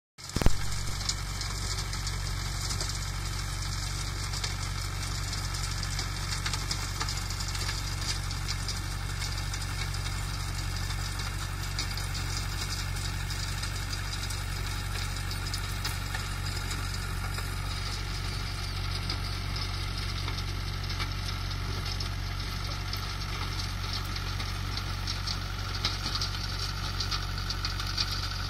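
Mahindra 575 Bhoomiputra tractor's diesel engine running steadily while driving a rotavator through the soil. A short sharp thump, the loudest sound, comes about half a second in.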